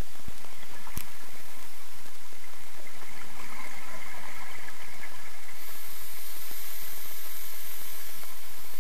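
Steady underwater hiss picked up by the camera's microphone, with a single sharp click about a second in and a faint high whine joining a little past halfway.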